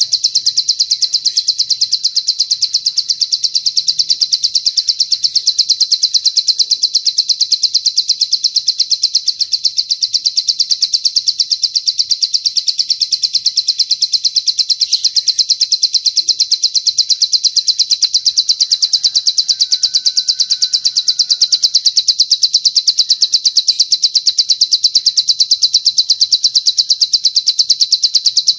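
Cililin bird song: one long, unbroken, high-pitched trill of very rapidly repeated notes.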